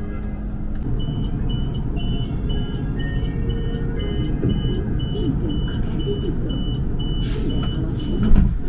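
Door warning beeper on a KTM ETS 93 class electric train, sounding short high beeps about twice a second over the low rumble of the train at a station stop. A brief louder knock comes near the end.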